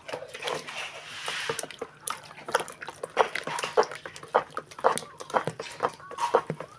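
A hand stirring and squeezing a thick coconut-milk mixture in a plastic bowl makes wet squelching and sloshing in irregular strokes, about two or three a second.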